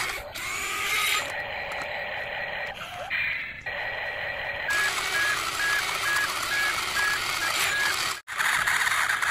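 Toy RC excavator whirring and grinding as it works in sand, with scraping, broken by several abrupt edits. About halfway through comes a run of short electronic beeps, about three a second, lasting some three seconds.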